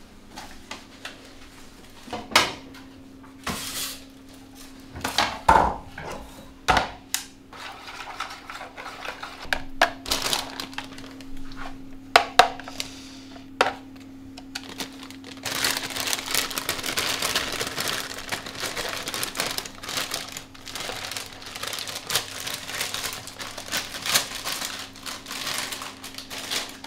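Kitchen food prep: a spoon knocking and scraping in a plastic tub as protein is stirred into cream of rice, with scattered sharp clicks. About halfway through this gives way to a continuous crackling rustle of a plastic bag as berries are tipped into the tub. A faint steady hum sits underneath throughout.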